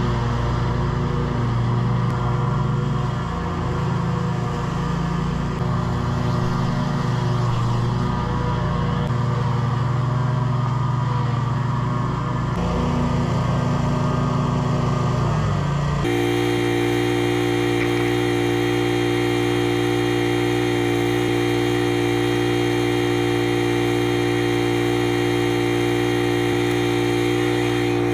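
Scag V-Ride 2 stand-on mower's engine running steadily while mowing grass, its pitch shifting slightly with load. A little past halfway the sound changes abruptly to a steadier, even drone.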